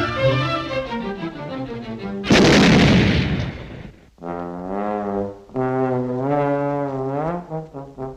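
Cartoon orchestral score. About two seconds in, a loud crash cuts across the music and dies away over a second or so. Then a brass section, led by trombones, plays long held notes with wobbling pitch.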